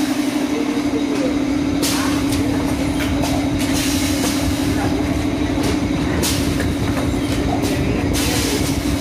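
Pneumatic cup filling and sealing machine running: a steady hum under a hiss of air about every two seconds as its pneumatic cylinders cycle.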